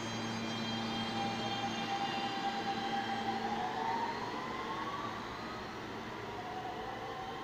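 New York City subway train pulling out of the station: a steady hum and high tones give way to a whine rising in pitch as it accelerates away, and the sound fades after about five seconds.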